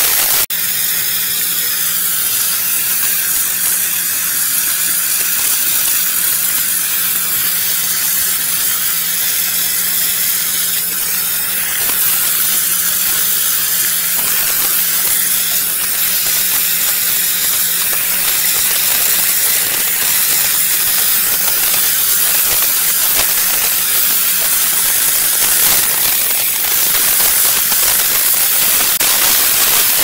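A steam cleaner's wand jets steam into the coil and fan of a wall-mounted air conditioner's indoor unit, making a steady loud hiss. The hiss breaks briefly about half a second in, and a low steady hum runs under it for about the first half.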